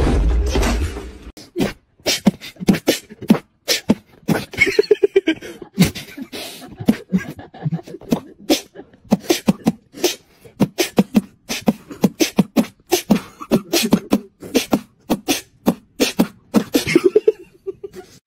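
Someone beatboxing: a fast, steady run of mouth-made kicks, snares and clicks mixed with short hummed notes. It opens with a loud low rumble and a voice that stop about a second and a half in.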